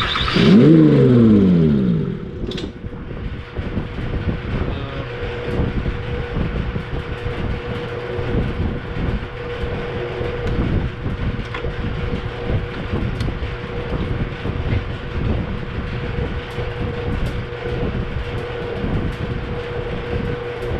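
2004 Mazda MPV's 3.0-litre V6 briefly started for a test and shut straight off, its pitch falling as it spins down over about two seconds. After that a steady low rumble with a constant hum.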